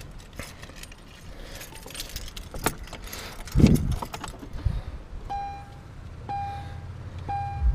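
Keys jangling and clicking, then the truck's warning chime dinging steadily about once a second, three times, as the key goes into the ignition.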